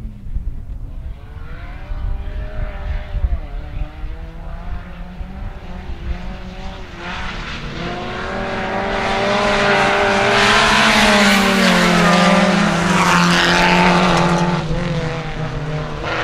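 Several 1400cc rallycross cars racing in a pack, their engines revving up and dropping back through the corners. The sound grows louder about halfway through as they pass close, then eases off.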